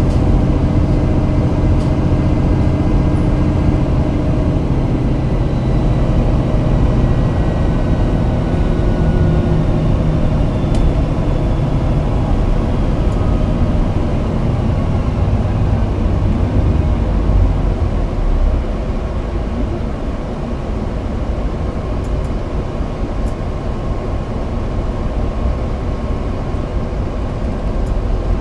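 Cabin noise inside a Toei city bus on the move: a steady engine and road rumble, with a faint whine that slowly shifts in pitch.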